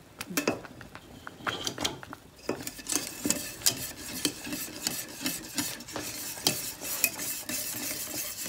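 Wire whisk stirring thick butternut squash pudding in a stainless steel saucepan, its wires tapping and scraping irregularly against the pan, sparse at first and busier from about two and a half seconds in. The pudding has cooked down to a thick, cream-like consistency.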